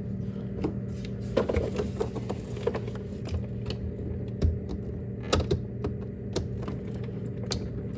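Irregular small plastic clicks and taps as the refrigerator ice maker's connector is fitted back together, over a steady low hum.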